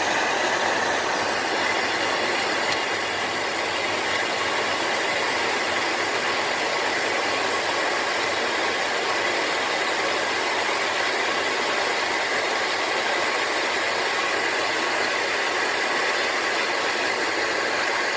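Electric heat gun running steadily, its fan blowing a constant rush of air with a faint high whine, heating the side-mirror glass to soften the old glue for scraping.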